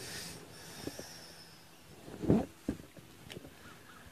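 Quiet handling sounds of hands pressing and squeezing a lawn tractor tire with its valve core removed, with faint hissing near the start. One short, louder knock about two seconds in, followed by a couple of sharp clicks.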